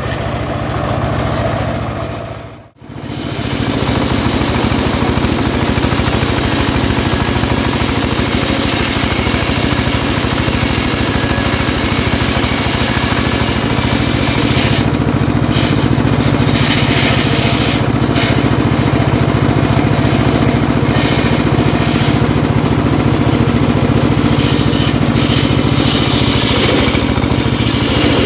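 Homemade engine-driven circular table saw running steadily while ripping sengon wood planks. The sound drops out briefly a few seconds in.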